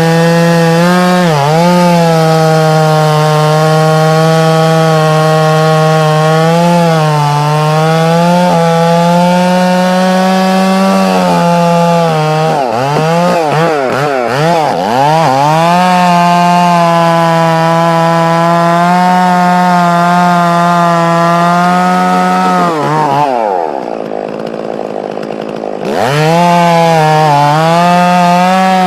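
Two-stroke chainsaw running at high revs, cutting wood, its pitch dipping and wavering as the chain bogs under load. About 23 seconds in it drops back to a quieter, lower tone for two or three seconds, then revs up again.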